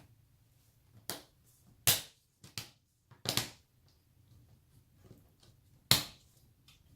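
Plastic laptop screen bezel clips snapping into place as the bezel is pressed back onto the lid: about six sharp clicks at uneven intervals, the loudest about two seconds in and near the end.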